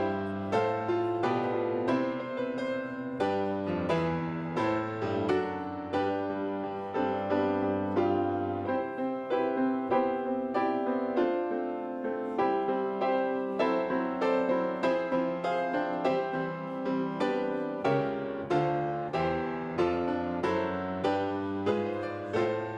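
Solo piano playing a gentle, steady piece in chords, with notes struck about twice a second.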